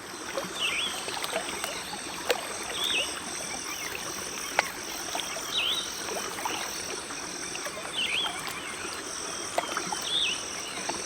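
Floodplain-forest ambience: a bird gives a short call about every two and a half seconds over a steady, pulsing high-pitched insect chorus, with a couple of sharp clicks.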